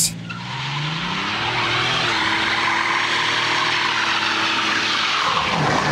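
Buick GNX's turbocharged 3.8-litre V6 doing a burnout: the revs climb over about two seconds, hold high while the rear tyres spin, and drop near the end.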